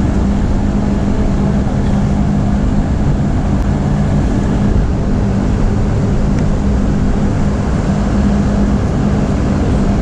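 A loud, steady mechanical drone with a constant low hum, from running machinery.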